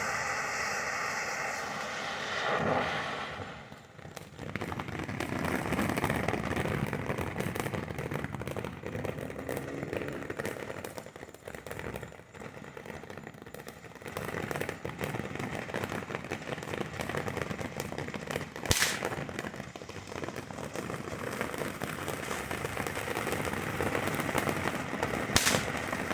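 Consumer firework fountain burning and crackling densely, with two sharp loud cracks standing out, one well past halfway and one near the end. It opens with a pitched, whistle-like sound for the first couple of seconds.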